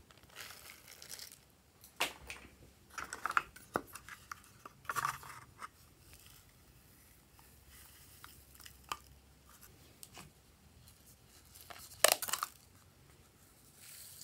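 Dry toppings (confetti sprinkles, glitter and foam beads) being poured and shaken from small plastic containers onto slime in a glass tray: scattered rustling, crinkling and light clicks, with a louder burst of rattling about twelve seconds in.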